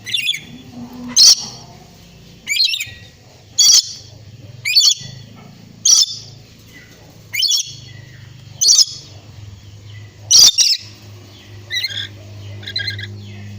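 A pet lory (nuri parrot) giving short, sharp, loud squawks about once a second, around nine in a row, then a few softer calls near the end.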